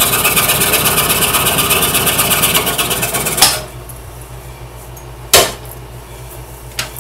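Scroll saw cutting a marquetry piece, its blade running with a rapid, even chatter, then stopping about three and a half seconds in as the cut is finished. A low hum remains, and a single sharp knock comes about two seconds later.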